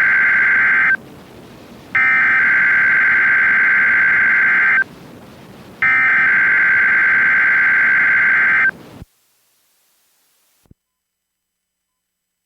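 NOAA Weather Radio Emergency Alert System (SAME) digital data bursts for a Required Weekly Test. There are three loud buzzing data-tone bursts: the first ends about a second in, and the next two each last about three seconds with a short pause between. The signal then drops to silence about nine seconds in.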